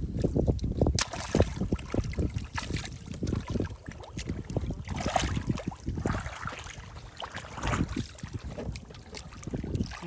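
Irregular splashing and sloshing in shallow water, with low thumps and occasional sharp knocks.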